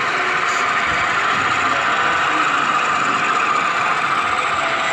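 Steady diesel engine running sound from model diesel locomotives hauling a freight train past.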